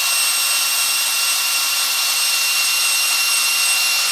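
Cordless drill running steadily at high speed, spinning a wire chamber brush on a cleaning rod inside an AR-15 barrel's chamber to scrub out fouling. A steady whine over an even hiss.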